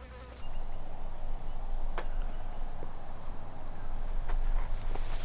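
Insects calling in a continuous chorus, one steady high-pitched drone. A single faint click comes about two seconds in.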